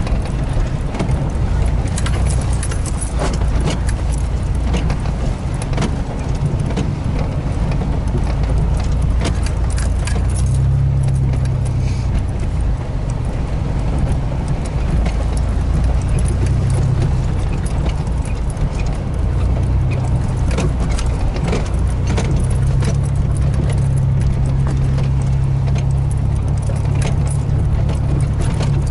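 Vehicle engine running at low speed, heard from inside the cab, its low drone shifting in pitch with the throttle. Frequent knocks and rattles from the cab and loose items as the vehicle bumps over a rough, muddy dirt track.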